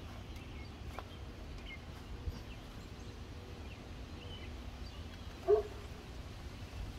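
One short dog bark about five and a half seconds in, over a faint steady low rumble of outdoor background.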